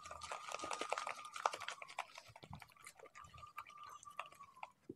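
Hand squishing and kneading thick egg-and-gram-flour batter in a plastic bowl: faint wet squelching clicks, densest in the first two seconds and then sparser. A faint steady high whine runs behind them and stops shortly before the end.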